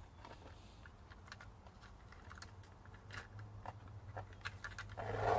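Bicycle roller chain being handled, its metal links clicking and clinking irregularly as it is pulled and fed through by hand, with a louder clatter of the chain about five seconds in.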